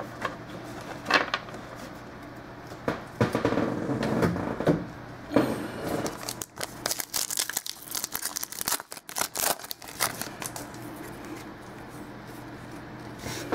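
Football trading cards being handled: paper and wrapper rustling and crinkling, then a dense run of quick clicks as the cards are flicked and slid through by hand.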